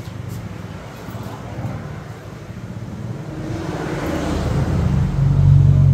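A motor vehicle passing by, its low engine hum growing louder through the second half and loudest near the end.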